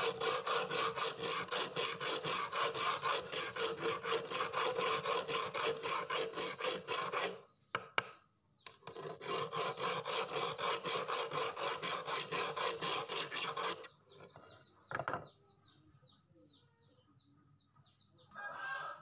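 A flat steel hand file rasps back and forth across a rusty knife blade in quick, even strokes, about three a second, taking the rust off. The filing stops a little past a third of the way in, with a single click in the gap, then runs again for about five seconds before stopping.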